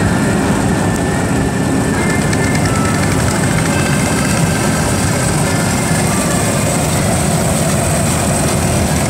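Old Massey-Harris combine harvester running, its engine and machinery making a loud, steady mechanical noise.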